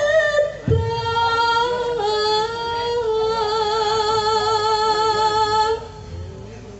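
Javanese sinden singing unaccompanied in a clear female voice, holding long drawn-out notes: one ends about half a second in and a lower note is sustained for about five seconds, wavering in vibrato for its second half, before she stops near the end.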